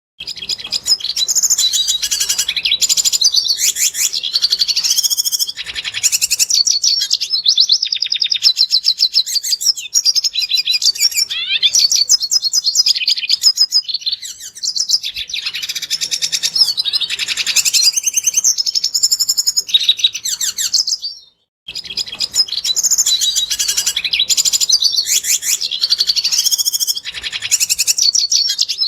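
Red siskin singing a fast, continuous twittering song. The song breaks off for a moment about two-thirds of the way through, then starts again.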